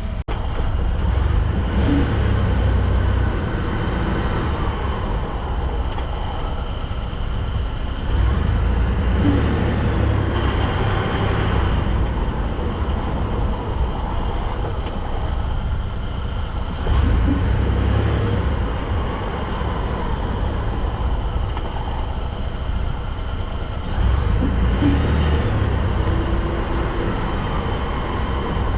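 2022 Ford F-150 pulling away from a stop four times, roughly every seven or eight seconds, the engine note rising each time. A short sharp noise comes at the start of each pull-away: the truck's mystery take-off noise, which the owner suspects comes from the driveshaft sliding and compressing on its spline.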